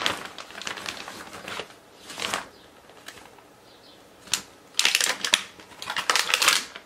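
Thin plastic packaging bag crinkling and rustling in irregular bursts as it is opened and a cap is pulled out and handled, loudest about five and six seconds in.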